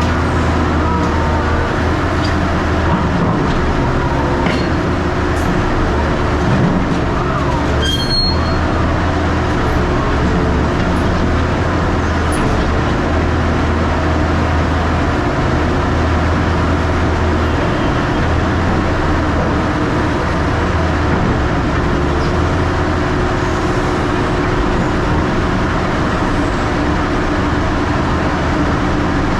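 Heavy machinery running: a steady, loud, low engine noise mixed with continuous mechanical clatter, with one short sharp sound about eight seconds in.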